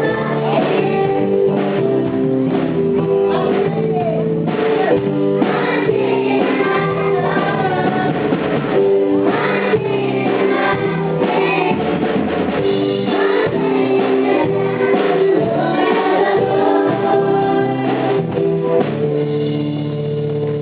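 Live praise-and-worship song: a group of children singing together over a kids' band of drums, keyboard and electric guitar, with a steady drum beat.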